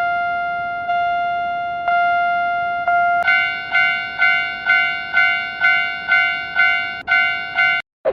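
Cartoon level-crossing warning bell, a synthesized ringing tone: first one long tone restruck about once a second, then a slightly higher tone dinging about twice a second, each stroke fading. It cuts off suddenly near the end.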